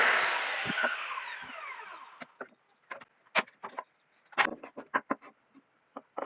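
A woodworking power tool switched off and spinning down, its whine falling over about two seconds. Then scattered knocks and clicks of wood pieces being handled.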